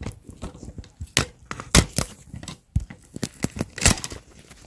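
Handling noise: an irregular run of clicks, knocks and light rustling as a hand-held camera is moved, with a few sharper knocks, the loudest about two seconds in and near the end.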